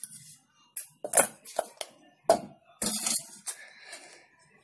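Stainless-steel bowl, spoon and strainer clinking and knocking together as syrup-coated shakkar pare are spooned out into the strainer to drain: a string of irregular sharp clinks, loudest about a second in and just after two seconds.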